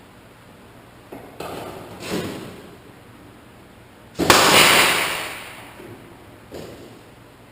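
Air-powered rivet gun setting rivets three times. Each time there is a sudden snap followed by a rush of air hiss that dies away, the loudest about four seconds in.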